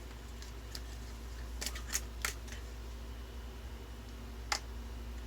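A handful of sharp plastic clicks as the battery compartment of a Sauleoo 4K camcorder is opened and handled, over a steady low hum.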